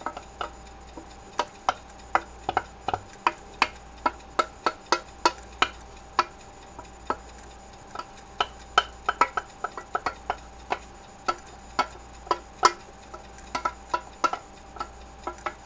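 Spoon knocking and scraping against a mixing bowl while thick creamy sauce is scooped out into a baking pan: a string of irregular sharp clicks, at times two or three a second.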